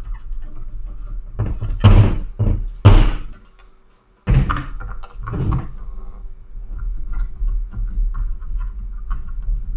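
Hollow plastic thunks and knocks of a Riddell SpeedFlex football helmet and its visor being handled while the visor is fitted. About five loud knocks come in the first six seconds, then lighter clicks and handling noise.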